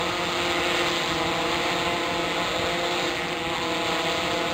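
Large octocopter's eight electric motors and propellers running steadily in flight: an even hum of several held tones over a broad rushing hiss.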